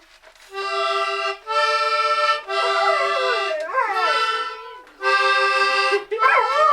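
Held notes played on a free-reed instrument, separated by short gaps, while a dog howls along in falling, wavering glides about three seconds in and again near the end.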